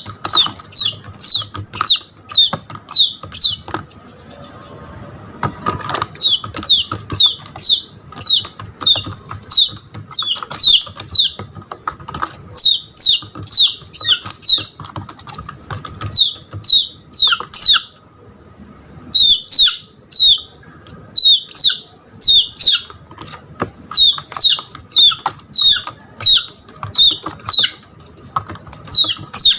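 Red junglefowl chick giving loud, repeated distress peeps, each a short falling note, about two to three a second in runs broken by short pauses. It is a lost chick crying for its mother, the call used as a lure to bring jungle fowl in.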